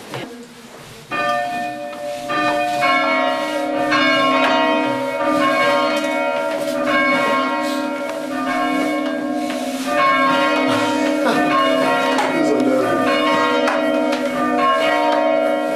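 Church bells rung full-circle by rope, heard from the ringing chamber below them; a small ring of three bells. The ringing starts about a second in, with steady strikes following one another and each bell's note hanging on under the next.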